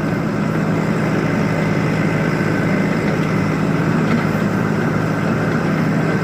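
Heavy vehicle engine running steadily, a constant low drone with no change in pitch.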